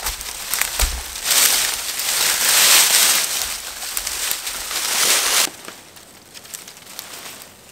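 Dry leaf litter and brittle twigs crackling and rustling as gloved hands gather them up and toss them onto a leaf-covered shelter, dense for about five seconds and cutting off sharply; after that only light scattered rustles and snaps.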